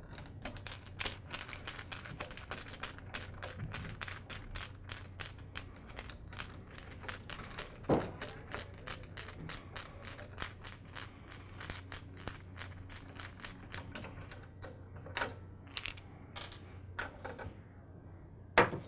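Screwdriver backing out the small terminal screws on a miter saw's power switch to free the wires. It makes a run of quick small clicks and ticks, with a few louder knocks about halfway and again near the end.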